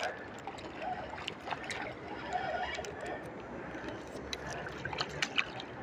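Water splashing with scattered sharp clicks and knocks, a hooked fish being fought and reeled in.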